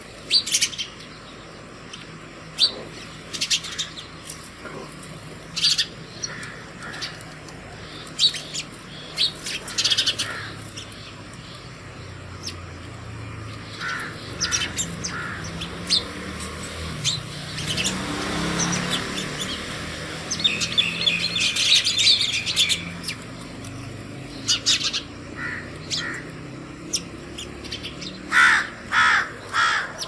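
House sparrows at a seed feeder chirping: short, sharp chirps from several birds, thickening into a quick chatter a little past the middle, with a few louder, harsher calls near the end. A low rumble in the background swells and fades around the middle.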